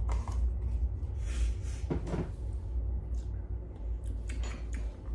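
Screw cap of a small jar being twisted and handled, giving a few short clicks and knocks about a second and a half, two seconds and four and a half seconds in.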